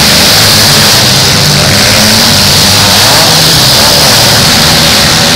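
Several demolition derby cars' engines running and revving together, loud and continuous, as the cars push and spin their tires in the arena.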